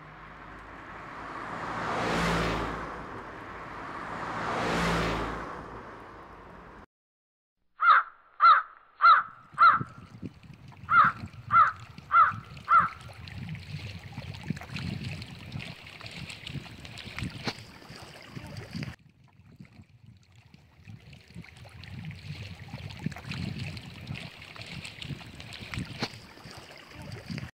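A crow cawing loudly in two quick runs of four caws, after two swelling whooshes at the start; a low, steady noise follows the caws.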